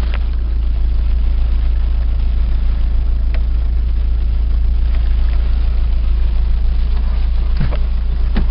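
VAZ-2112 engine idling steadily with a knock in the cylinder head. The owner finds the knock grows as the engine warms while oil pressure drops to about 1 kgf/cm² at idle, even after new hydraulic lifters, oil and filter.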